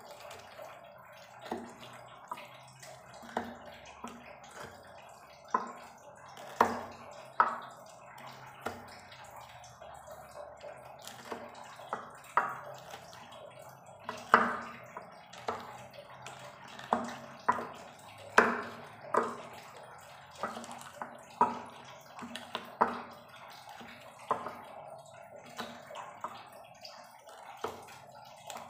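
Wooden pestle crushing and pounding green chilies into sambal: wet squashing knocks at an irregular pace, about one a second.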